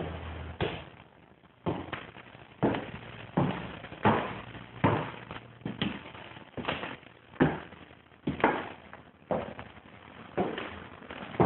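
Footsteps on a freshly finished hardwood floor: firm steps about once a second, each a sharp knock with a short ring of room echo.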